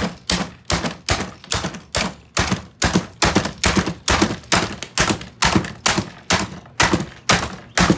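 A hammer striking the plastic body of a Dyson Big Ball vacuum cleaner over and over, sharp blows in an even rhythm of about two and a half a second.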